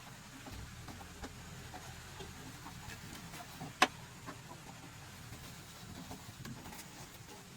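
Quiet handling noise: faint scattered ticks and taps, with one sharp click about four seconds in.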